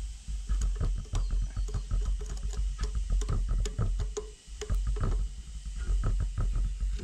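Screwdriver working at rusted metal pipe fittings on an old Fiat 615 tractor: irregular clicks, taps and scrapes of metal on metal, over a steady low rumble.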